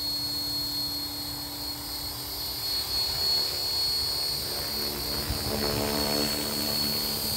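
Align T-Rex 450 electric RC helicopter flying overhead: a steady high motor whine with the buzz of the spinning rotor blades, its pitch shifting about five seconds in.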